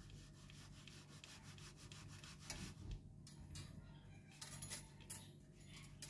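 Long kitchen knife sawing back and forth through a sponge cake, a faint, soft rasping of the blade in repeated strokes as the cake is split into layers.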